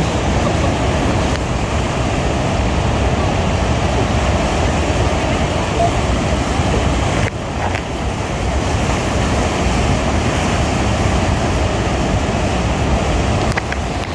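Steady roar of the American Falls and the churning water below them, mixed with wind buffeting the microphone. The noise dips briefly about seven seconds in.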